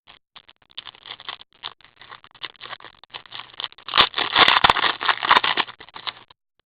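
Trading card pack's foil wrapper being crinkled and torn open, with crackling and small clicks, loudest about four seconds in.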